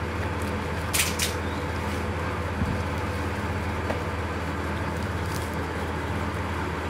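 A steady low hum runs throughout, with two short rustles from the cardboard box and plastic sleeve being handled about a second in, and a soft knock a little later.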